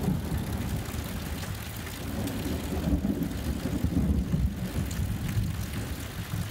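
Low rolling rumble of thunder over the steady hiss of rain, the rumble swelling again in the middle.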